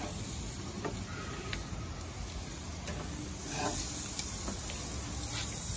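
Raw swordfish fillets sizzling on a hot gas-grill grate: a steady hiss, with a few light clicks.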